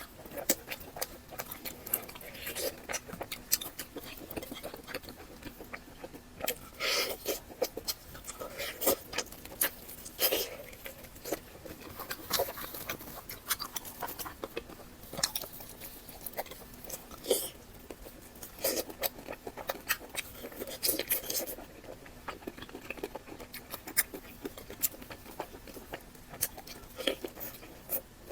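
Close-miked eating sounds: irregular wet chewing, smacking and small crunches of a person eating, with a faint steady hum underneath.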